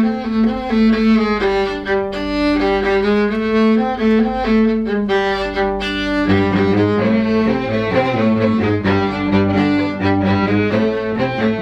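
Background music played on bowed strings, violin over cello, with a deeper bass part coming in about six seconds in.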